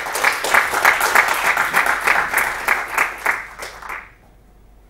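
Audience applauding: many hands clapping at once, dying away about four seconds in.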